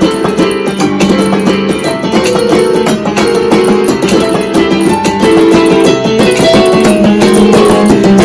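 Yamaha electronic keyboard playing a piece of music, its keys pressed by a 1978 Pianocorder's solenoid player mechanism: a steady, busy stream of notes over held bass tones.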